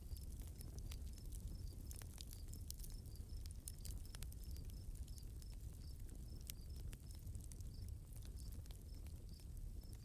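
Nature ambience: scattered pattering ticks like rain drops over a steady low rumble, with an insect such as a cricket chirping in an even, repeating rhythm.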